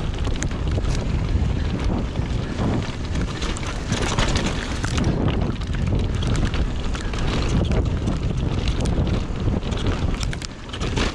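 Wind buffeting an action camera's microphone on a mountain bike descending a dirt downhill trail at speed, over the rumble of tyres on dirt and scattered knocks and rattles from the bike. The loudness dips briefly near the end.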